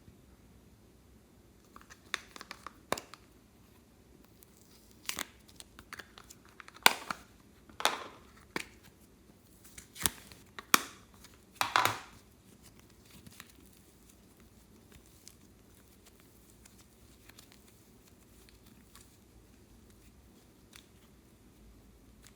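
Clear slime being stretched and pressed by hand, giving a run of sharp crackles, snaps and tearing pops that die away about halfway through.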